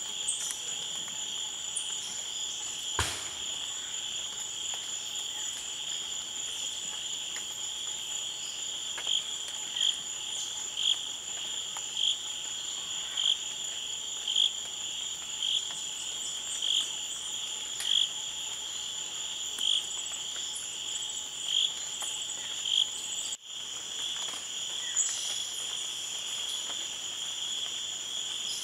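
Steady chorus of rainforest insects, a shrill drone in two high pitches. Through the middle a louder chirp repeats about once a second, and there is one sharp click near the start.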